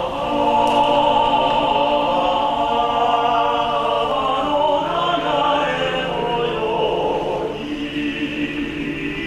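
Men's vocal ensemble singing in harmony, holding long sustained chords.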